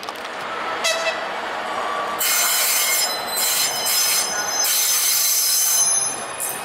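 A České dráhy RegioPanter electric multiple unit pulls into the platform, its wheels squealing: a high-pitched squeal that comes and goes in several bursts from about two seconds in.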